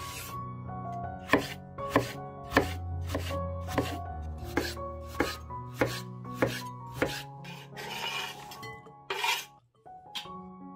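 Chef's knife chopping a cucumber on a bamboo cutting board: sharp, evenly spaced cuts a little more than half a second apart, over soft background music. Near the end there is a brief rustling scrape.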